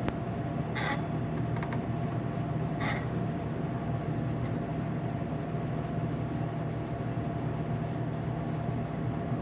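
Hot dog roller grill's drive motor humming steadily while the rollers stay stuck, the sign of a jammed roller drive. Two short scratchy noises come about one and three seconds in.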